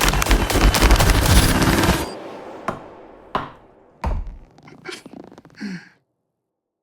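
Dense, rapid run of sharp cracks and impacts for about two seconds, thinning to a handful of single hits and a short falling tone, then cutting off to silence near the end.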